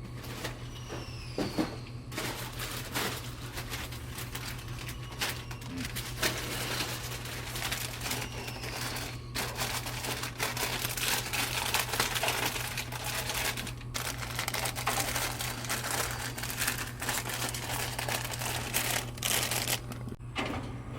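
Bags of chips crinkling and rustling as they are handled and stocked into a vending machine, with many small crackles and clicks, over a steady low hum.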